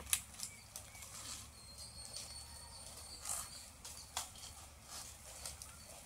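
Outdoor rural ambience: scattered short rustles and crackles, with a faint, thin, high bird call from about one and a half to three seconds in.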